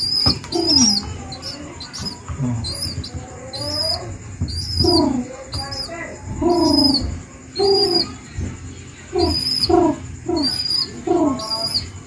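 Baby pigeon begging while being hand-fed, giving short squeaky calls about once a second, some high and thin, others lower notes that slide down in pitch.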